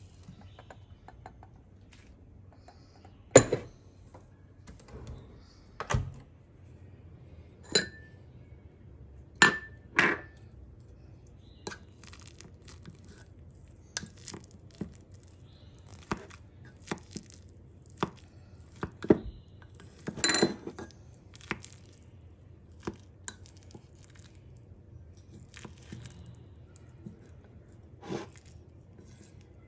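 A glazed ceramic mug and its lid knocking and clinking as they are handled and set down: separate sharp clinks every second or two, some with a brief ring, the loudest about three seconds in and a cluster of them about twenty seconds in.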